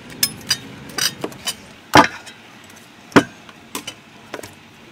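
Sharp knocks and clatters of kitchen utensils against stainless steel bowls and pots, a string of light clicks with two loud knocks about two and three seconds in.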